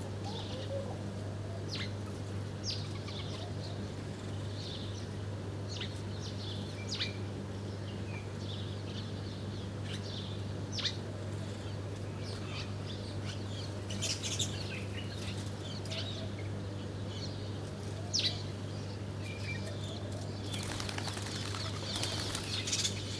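Small birds chirping in short, scattered high calls, with a burst of wing flapping about two seconds before the end, over a steady low hum.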